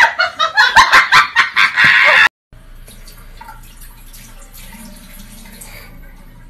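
Loud, pulsing laughter that cuts off abruptly about two seconds in, followed by a faint tap running into a bathroom sink.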